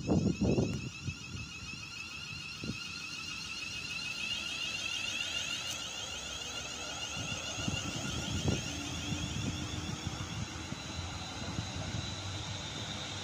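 Class 350 Desiro electric multiple unit moving off, its traction motors giving a whine of several tones that slowly rise in pitch. Low thumps of wind on the microphone come at the start.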